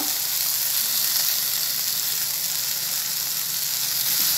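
Roasted onion-tomato masala paste sizzling steadily in hot oil in a nonstick pan, a constant high hiss.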